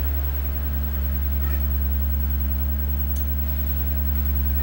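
Steady low electrical hum at mains frequency, with fainter steady hum tones above it. A couple of faint clicks come through, about one and a half and three seconds in, as oscilloscope front-panel buttons are pressed.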